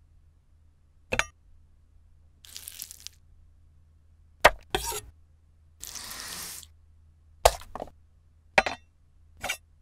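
Cleaver cutting on a wooden cutting board: sharp chopping knocks, some in quick pairs, with two short scraping swishes between them.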